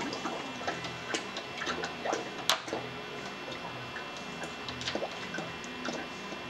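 Antifreeze pouring from a bucket into a flush-cart reservoir while the purge pump runs, with scattered small clicks and pops from liquid and air bubbles and a sharp click about two and a half seconds in, over a faint low pump hum. The clicks and pops come as air is pushed out of the geothermal loop while it fills.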